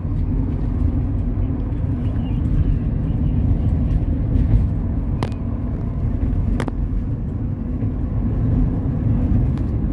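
Steady low road and engine rumble heard inside a moving taxi's cabin, with two short sharp clicks about a second and a half apart past the middle.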